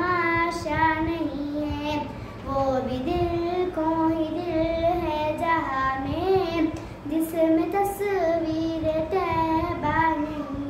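A young girl singing a naat, an Urdu devotional song in praise of the Prophet, solo and without instruments, holding long wavering notes with short breaks between phrases.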